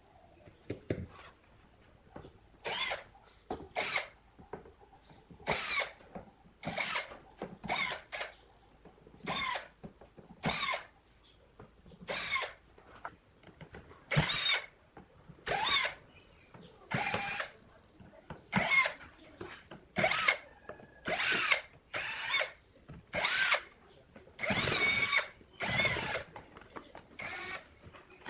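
Power drill running in about twenty short bursts, each under a second, its motor pitch rising and falling within each burst.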